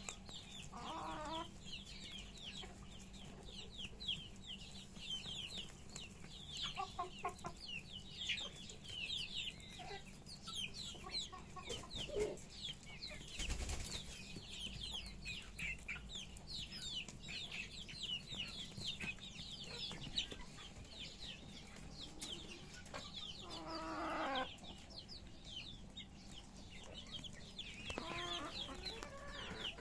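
Chickens clucking amid a steady stream of short, high, falling chirps, with one brief thump about halfway through.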